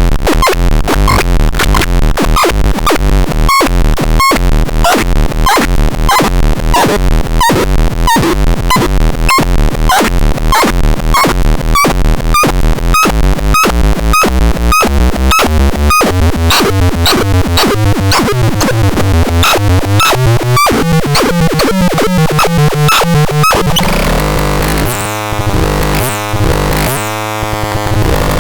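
Electronic synthesized sound: a fast, even train of pulses, several a second, with short bleeps that step upward in pitch. About 24 seconds in it breaks into a dense, noisy, glitchy wash.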